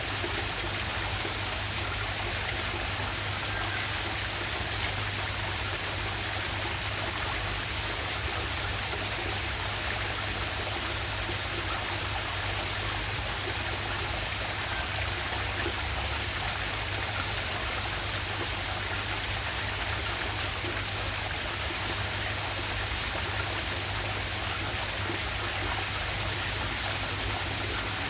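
River waterfall, water rushing steadily.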